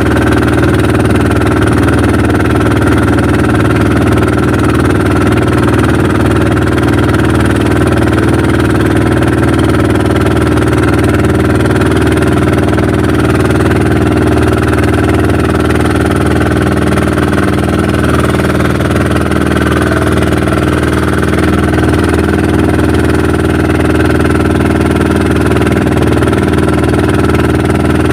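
Engine of a motorized outrigger fishing boat (bangka) running steadily under way, a constant drone with no change in speed.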